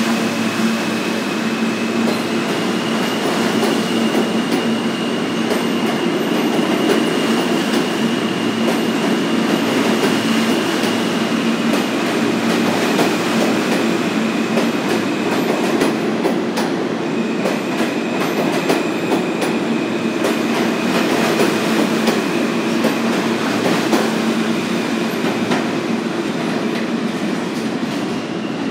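New York City Subway R160-series train (R160A-2/R160B cars) pulling out and running past along the platform. Its wheels click over the rail joints against a steady high whine.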